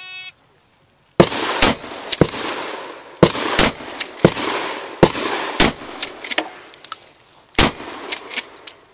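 A shot timer beeps once to start the stage. About a second later a shotgun fires a string of about eight shots at uneven spacing over some six seconds, with quieter sharp clacks between the shots.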